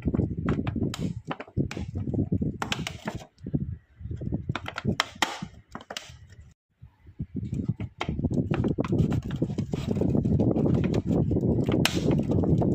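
Irregular knocking and clattering over a low rumble, stopping almost to silence about six seconds in, then resuming as a denser, steadier clatter.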